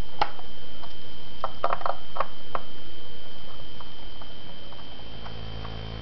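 Small screwdriver unscrewing the screws of a laptop's memory-bay cover: scattered light clicks and ticks, with a quick run of them about one and a half to two and a half seconds in.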